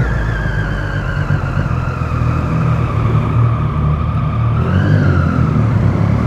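Motorcycle engine running at low speed inside a parking garage, its pitch sinking slowly as it rolls along, then rising in a short throttle blip about five seconds in.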